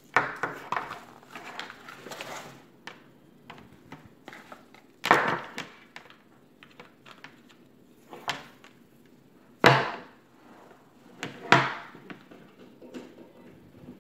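Rustling and scraping as a laptop charger's cord is handled and unwound, then three loud knocks against the tabletop, the first about five seconds in and two more close together near ten and eleven and a half seconds.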